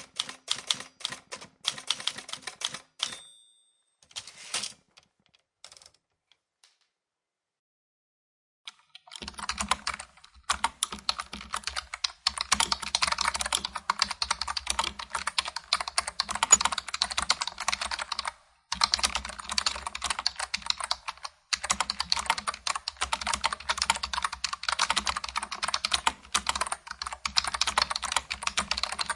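Typewriter keys clacking, then a short high ding and a few last clacks before about three seconds of silence. Then fast, steady typing on a computer keyboard, with two brief pauses.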